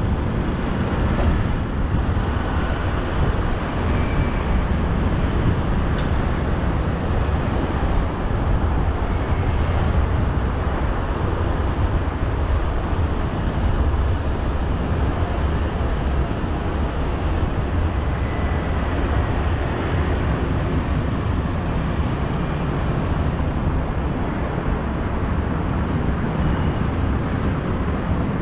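Steady road and traffic noise from a drive through city streets: a constant low rumble with a hiss above it that doesn't let up.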